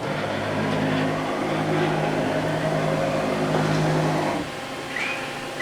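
A motor on a Mitsui-Seiki HS3A horizontal CNC machining center starts up, runs with a steady hum for about four seconds, then stops. A short high chirp follows near the end.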